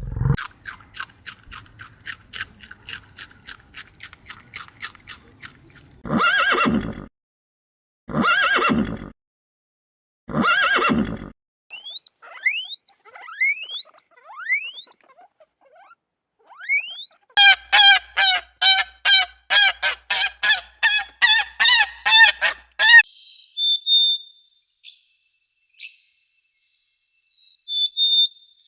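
A string of different animal calls: a rapid run of clicks, then three long calls, several quick rising whistles, a fast series of short pitched calls, and finally a few faint high chirps.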